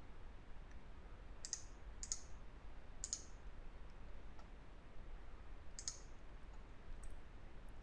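Computer mouse button clicking about five times at irregular intervals, over a faint low hum.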